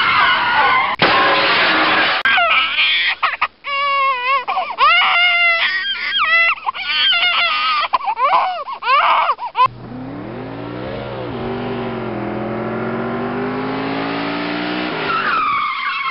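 Car sound effects: a noisy rush, then a run of wavering tire-squeal screeches, then an engine revving up with rising pitch for about five seconds, and a short squeal near the end.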